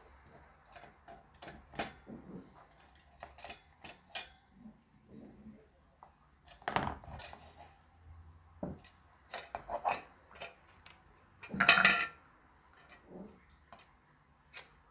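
Metal parts of a mini USB desk fan and hand tools being handled during disassembly: irregular small clicks, clinks and scrapes, with a longer scrape about seven seconds in and a louder metal clatter about twelve seconds in.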